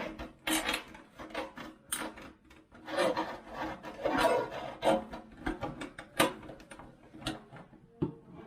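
An old, rusted kitchen faucet and its supply hose being worked loose. Metal scrapes and rubs in irregular strokes, mixed with sharp clicks and knocks.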